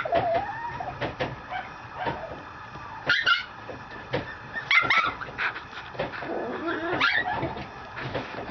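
Mame shiba puppy giving short, high yips and play barks, three or four times, with a few light clicks and rustles from the toys between them.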